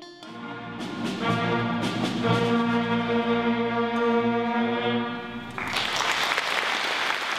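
School concert band of woodwinds and brass, saxophones, clarinets, flutes and trombones, playing a long held chord that swells in. About five and a half seconds in the band stops and audience applause takes over.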